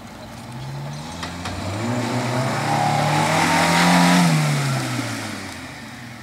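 A 4x4 SUV's engine revving hard as it drives through a flooded mud hole, with water splashing. The engine note rises and grows louder to a peak about four seconds in, then drops in pitch and fades as the vehicle climbs out.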